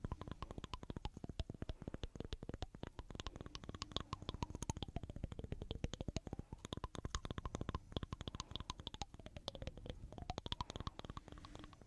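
Close-miked ASMR trigger sounds: a fast, continuous run of sharp clicks and scratches, many to the second, with a faint tone slowly wavering up and down behind them.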